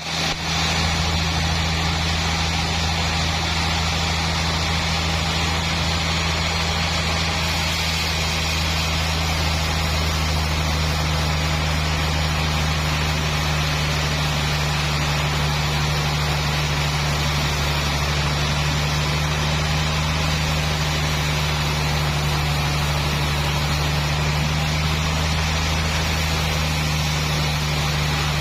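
Sawmill machinery running steadily with a constant low hum and a hiss of noise above it, unchanging in pitch and level throughout.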